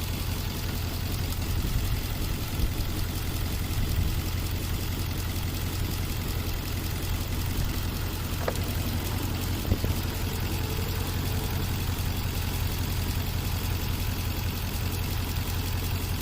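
Nissan 5.6-litre V8 idling steadily, with a faint click or two near the middle. The engine has a cylinder 8 misfire code (P0308), and the back cylinder is probably barely firing.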